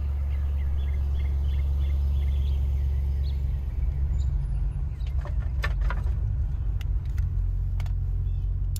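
Old Land Rover Discovery driving, a steady low rumble with a few sharp knocks and rattles about five to six seconds in.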